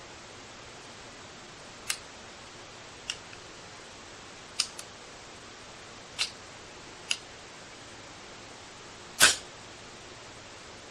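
Homemade air rifle fired once near the end with a single sharp report. Before it come six lighter clicks at uneven intervals, one of them doubled.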